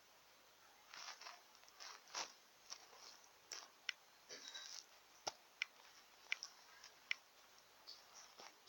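Faint, irregular small clicks and taps, about a dozen, with a couple of short rustles, against a quiet room background.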